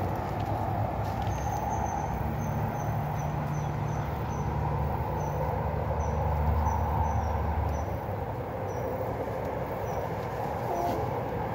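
A steady outdoor rumble that grows heavier and lower for several seconds in the middle, with short high chirps repeating about twice a second over most of it.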